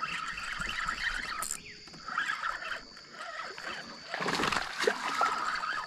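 A hooked peacock bass being fought on the line: splashing and reel noise, with a louder stretch of splashing about four seconds in.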